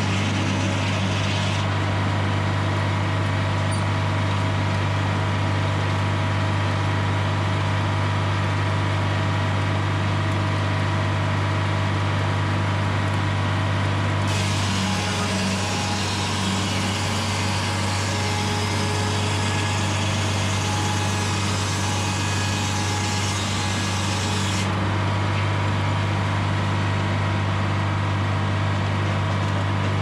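GM Detroit Diesel 4-71, a supercharged four-cylinder two-stroke diesel, running steadily as it drives a Frick sawmill's circular saw. A harsher, brighter hiss joins it for about ten seconds in the middle while the engine note dips slightly.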